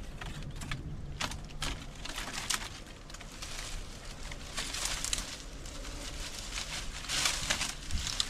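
Dry branches and leafy twigs rustling and crackling as they are pulled and gathered by gloved hands, with scattered small cracks and heavier rustles about halfway and near the end.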